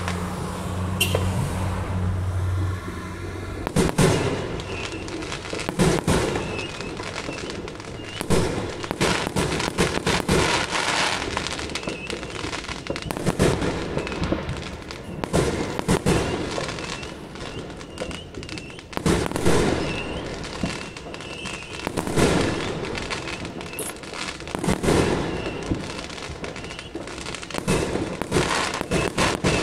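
New Year aerial fireworks going off in a dense run of bangs and crackles, with the loudest bursts every two or three seconds. A low steady hum sits under the first few seconds.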